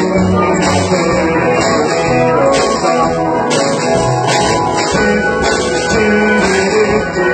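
Live rock band playing, with guitar and drums, cymbals coming in and out roughly once a second.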